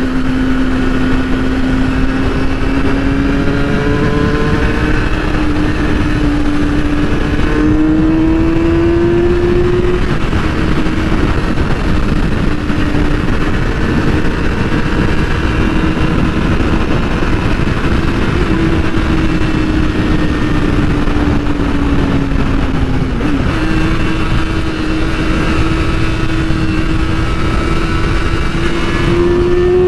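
2008 Yamaha R6's inline-four engine running under way, its pitch slowly rising and falling with the throttle, with a drop about ten seconds in and a brief dip and step up near twenty-three seconds. A strong rush of wind noise runs under it.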